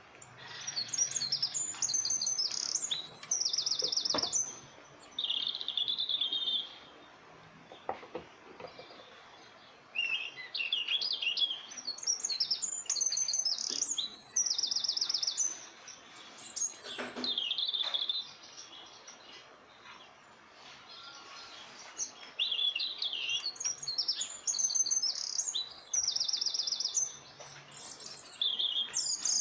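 A songbird singing, giving the same phrase of quick high chirps and trills three times, each a few seconds long, with pauses between.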